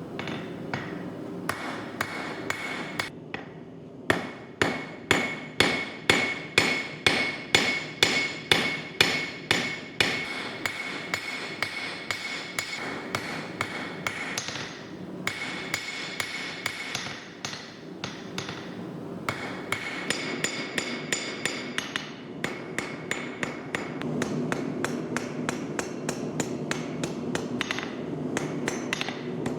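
Blacksmith's hand hammer forging steel bar on an anvil: a long run of steady strikes, about two to three a second, each with a bright anvil ring. The blows are heaviest for several seconds early on, then turn lighter and quicker, over a steady low hum.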